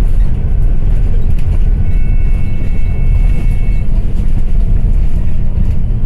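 Dublin Bus double-decker running, a loud steady low rumble of engine and road noise. A thin, high steady whine sounds for about two seconds in the middle.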